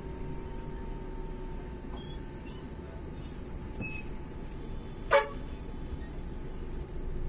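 Steady rumble of the bus engine and road noise heard inside the cabin. About five seconds in, a vehicle horn gives one short toot, the loudest sound here.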